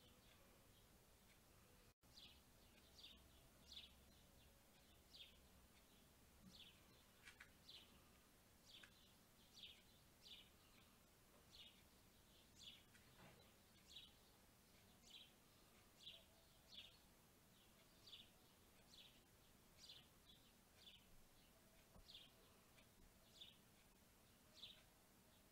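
Faint bird chirping outdoors: a steady run of short, high chirps, each a quick downward sweep, repeating about once or twice a second over a soft background hiss.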